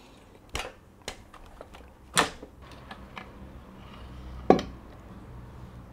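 Metal clicks and knocks as an outboard motor's lower unit (gearcase) is pulled off the midsection and handled. There are a few light clicks, a louder knock about two seconds in, and a louder clunk with a short low ring about four and a half seconds in.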